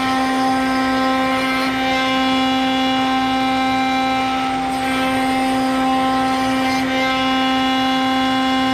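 Electric power tool running steadily at high speed: a constant whine over a hum, with no change in load.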